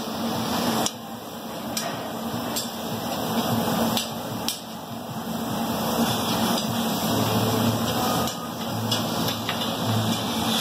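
Long metal cooking sticks scraping and clacking on a large round flat-top griddle, with a few sharp knocks, as meat, noodles and vegetables sizzle. A steady ventilation hum runs underneath.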